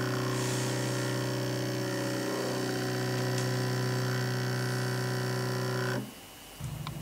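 X-Carve Z-axis stepper motor whining at one steady pitch as it feeds the bit slowly down toward the stainless steel probe plate, then cutting off suddenly about six seconds in when the bit touches the plate and the probe contact ends the move.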